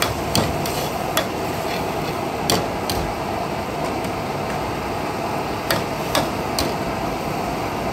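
Metal ladle scraping and clinking against a steel wok while stirring, about seven sharp clinks spread through, over the steady rush of a gas wok burner.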